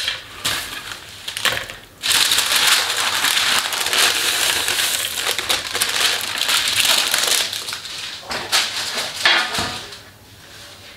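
A few caramel-coated nut pieces clicking into a plastic food-processor bowl, then a sheet of baking paper crinkling loudly for about six seconds as it is lifted and gathered up, fading out near the end.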